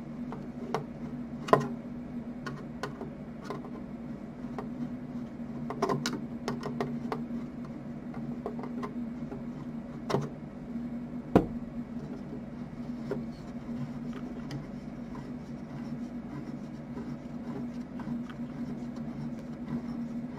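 Scattered clicks, scrapes and knocks of hand work on screws and the wooden base of a vintage radio-phonograph chassis, over a steady low hum. Two sharp knocks stand out, one about a second and a half in and one about eleven seconds in.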